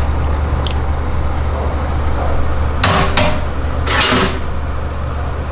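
Kitchen utensils clattering twice, short knocks about three and four seconds in, over a steady low hum.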